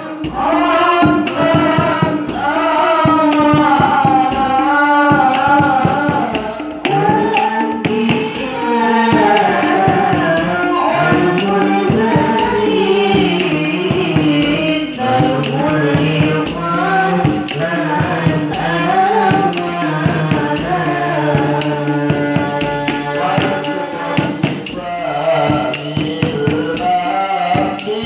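Sholawat, Islamic devotional song: male voices singing into microphones over a steady beat from a kendang hand drum and the jingle of kecer cymbals.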